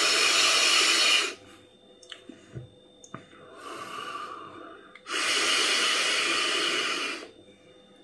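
Long, loud hissing breaths of a man vaping from a pod with its airflow closed halfway for a tighter draw: a draw of about two seconds, a softer exhale of vapour a few seconds in, then a second long breath in.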